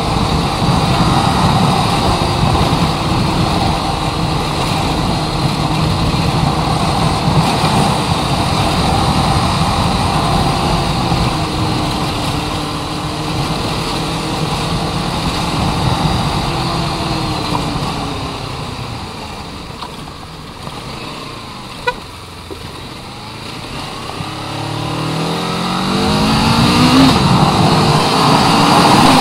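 Motorcycle engine running under way with wind rush, heard from a chest-mounted action camera on the rider. Its sound eases off and goes quieter for a few seconds, with a single sharp click, then the engine pitch climbs as it accelerates near the end.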